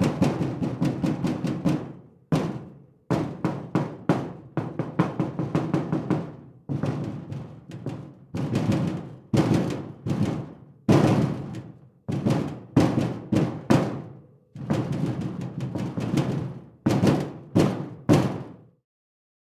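Sheet metal being banged on repeatedly, in rapid flurries of hits with short pauses between them. Each hit rings with a low, booming resonance that decays. The banging stops near the end.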